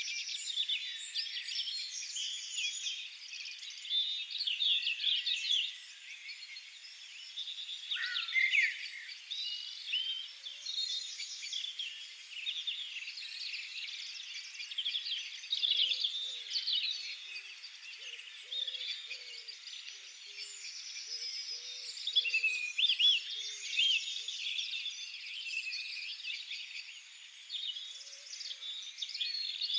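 A chorus of many songbirds singing at once, a dense overlapping mix of trills, chirps and warbles. Faint low notes repeat in the middle stretch.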